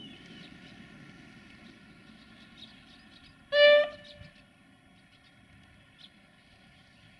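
Duewag BR628 diesel railcar sounding one short horn blast a little over three and a half seconds in, over the low steady running of its diesel engine.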